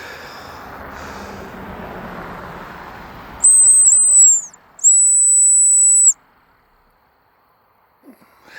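ACME dog whistle blown in two loud, very high-pitched blasts: first a warbling blast of about a second, then a steady one of over a second. Together they give the dog the signal for attention, then come here. Before the blasts there is only a faint steady rushing noise.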